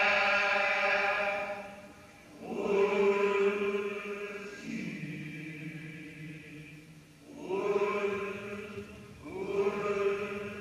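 Group of voices chanting traditional Indonesian music in long held phrases, each a few seconds long with short breaks between; one phrase near the middle slides down in pitch.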